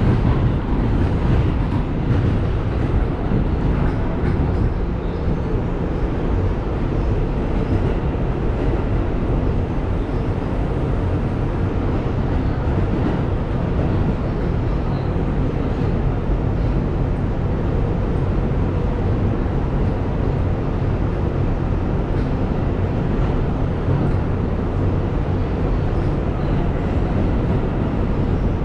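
Steady running noise heard inside an R211A subway car as it travels along open track: a continuous low rumble of wheels on the rails.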